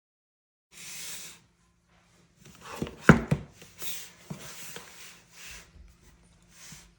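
Hands handling packaging: short rubbing and scraping noises with a few sharp knocks, the loudest knock about three seconds in.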